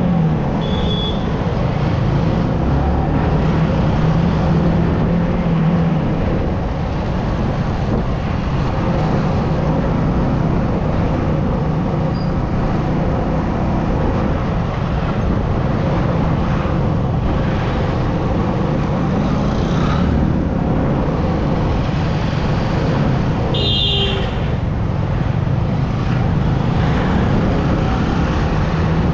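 Motorcycle engine running at steady cruising speed, with wind and road noise. A short vehicle horn beep sounds late on.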